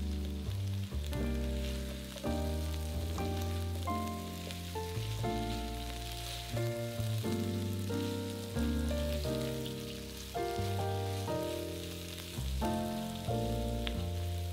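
Sliced carrots, onions and red bell pepper sizzling as they fry in a pan, a steady sizzle under background music that carries the melody and bass.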